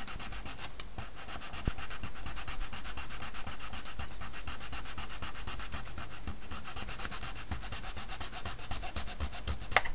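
Fine-toothed hobby saw cutting a resin model part off its sprue: a steady back-and-forth rasp at about four strokes a second.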